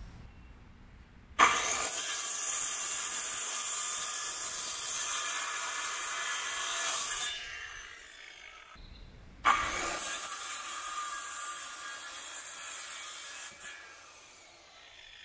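Power drill boring through a wooden sill plate board, the hole drilled for an anchor bolt. It runs twice: once for about six seconds, then after a short pause for about four seconds, each run starting abruptly.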